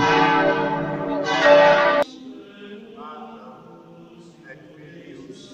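Church bells of Brixen Cathedral ringing loudly from the bell tower, a rich mix of sustained ringing tones that cuts off abruptly about two seconds in.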